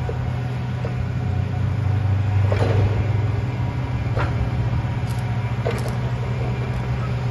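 Heavy diesel engine running steadily with a low hum, with a few sharp knocks about two and a half, four and five and a half seconds in.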